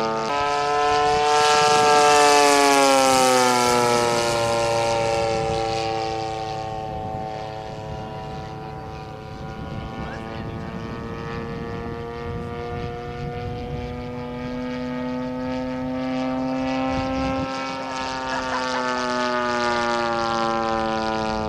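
Engine and propeller of a large radio-controlled AT-6 Texan scale model droning in flight. The sound is loudest as the model passes about two seconds in, with the pitch falling as it goes by. It then steadies and fades as the model moves away, swells again near the end, and falls in pitch on a second pass.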